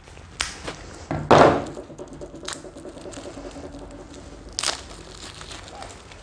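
Cardboard board-game pieces and packaging being handled: a few light taps and clicks, with one louder thunk and rustle about a second in.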